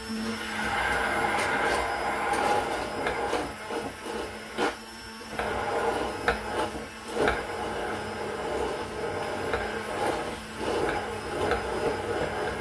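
Hand-held immersion blender running in a tall cup, whipping warm coconut milk into foam: a steady motor hum with the blade churning, easing off briefly about five seconds in and again near ten seconds, with a few sharp knocks against the cup.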